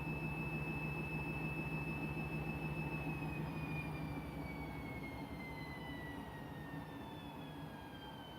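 Washing machine's drum spinning a half load: a high motor whine over a low hum holds steady, then from about three seconds in falls steadily in pitch and fades as the spin slows down.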